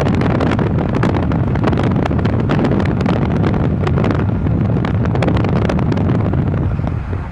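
A vehicle cruising at highway speed: steady road and tyre rumble with wind buffeting the microphone.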